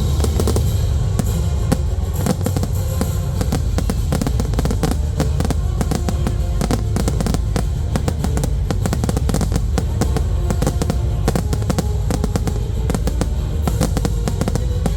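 Fireworks display set to music: a dense, rapid run of firework bangs and crackles over a loud musical soundtrack.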